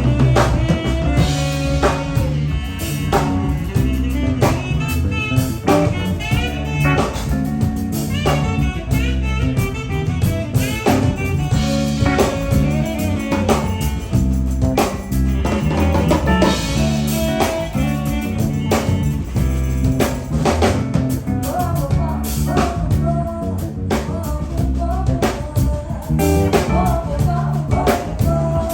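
Live band playing a song: drum kit keeping a steady beat under bass and electric guitar, with a lead melody line over them.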